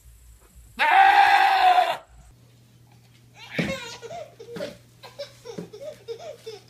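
A goat gives one loud, wavering bleat lasting about a second. Then a baby squeals and giggles in a run of short sounds.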